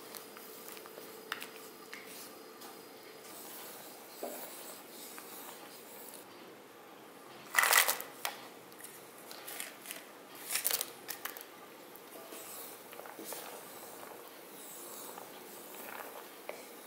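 Wooden spatula stirring and scraping thick, simmering milk in a metal pan, with soft wet squelches and light scrapes. About halfway through come a few louder, sharper scrapes and knocks.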